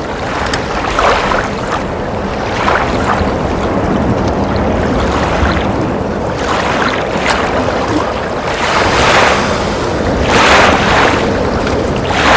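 Strong wind buffeting the microphone over rushing, choppy water where the wind blows into the current below a waterfall, swelling in irregular surges every second or few.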